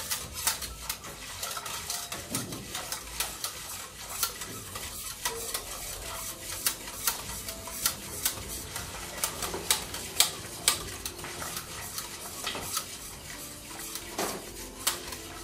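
Wire whisk stirring a milk, sugar, flour and starch mixture in a stainless steel pot, its wires ticking and scraping against the pot in quick, irregular clicks. The whisking breaks up lumps in egg-free pastry cream.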